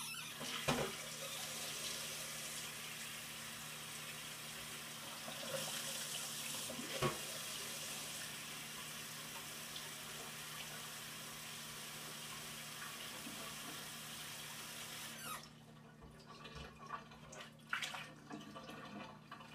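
Kitchen tap running cold water into the sink to rinse freshly boiled eggs, a steady splashing hiss that is shut off about three-quarters of the way through. A few light knocks follow.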